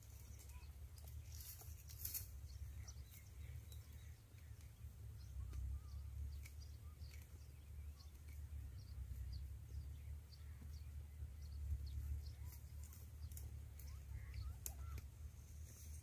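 Quiet rural outdoor ambience: a steady low rumble, faint bird chirps here and there, and scattered small clicks and crackles.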